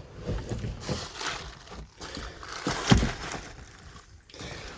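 Dirty water sloshing and splashing in the flooded hull of a derelict boat as someone moves about in it, with a sharp knock about three seconds in.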